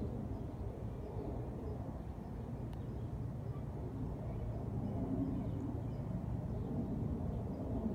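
Steady low ambient rumble with no distinct events.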